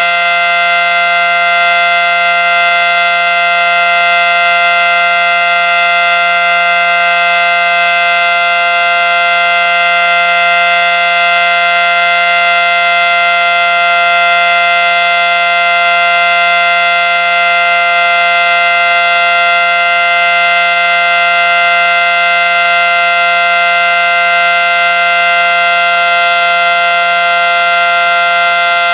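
Federal Signal Model 5T outdoor warning siren sounding its full-alert signal: one loud, steady tone held at constant pitch without rising or falling.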